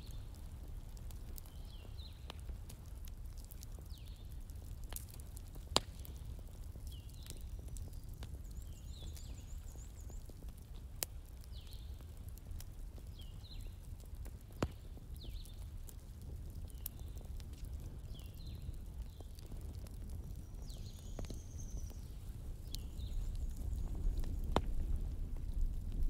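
Crackling fire: a steady low rumble with scattered sharp pops and crackles, growing louder near the end.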